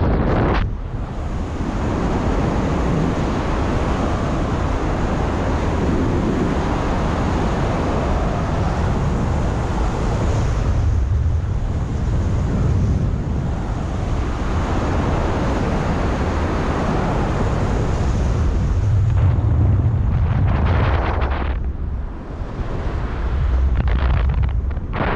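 Wind buffeting the microphone during a paraglider flight: a steady rush with a heavy low rumble that swells and eases, thinning briefly near the start and again near the end.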